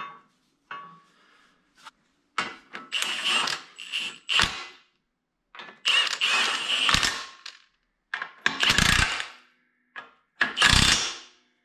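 Milwaukee cordless impact wrench hammering bolts to fasten a steel splitting stand to a Farmall C tractor, in four bursts of one to two seconds each. A few light metal clinks from handling the stand come before the first burst.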